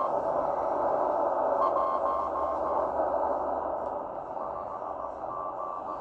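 Morse code beeps from the M12 Russian number station heard through a Tecsun shortwave receiver's speaker on 13925 kHz upper sideband: a single-pitch tone keyed on and off in stretches, with a gap in the middle, over steady band static hiss.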